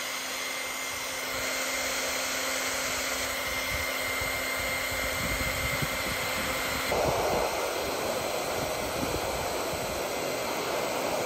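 Hand-held electric hair dryer running steadily, blowing hot air onto the mounting pad of the car's trunk lid. It gives a steady rush with a thin whine; about seven seconds in the whine drops out and the rush turns lower and rougher.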